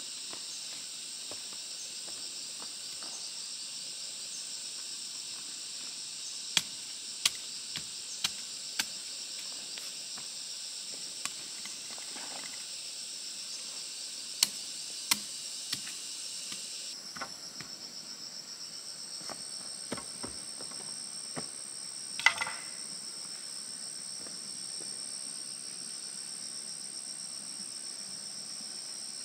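Steady high-pitched drone of insects, with sharp knocks of a hand digging tool striking the ground: a quick run of about five strokes around a quarter of the way in, a few more midway, and one louder knock with a short ring about three-quarters through.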